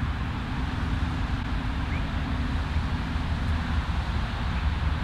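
Wind buffeting the microphone on an open links golf course: a steady low rumble that rises and falls irregularly.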